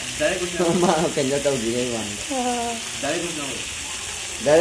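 Chicken pieces frying in a pan over a wood fire, a steady sizzle, with a person's voice talking over it for most of the time.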